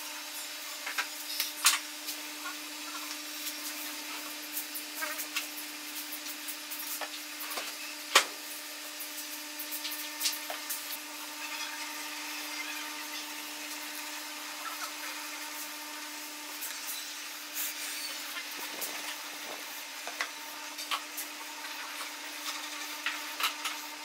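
Pallet wood being worked by hand at a workbench: scattered wooden knocks, taps and rubbing over a steady low hum, with one sharper knock about eight seconds in.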